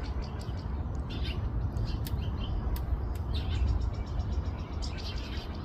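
Small songbirds chirping and twittering in short, quick calls, over a steady low rumble.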